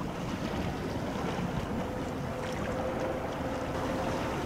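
Passing ferry Akashia, a 208 m Ro-Ro passenger ship: a steady low rumble of the ship and the water along its hull, with wind on the microphone. A faint steady tone joins about a second and a half in.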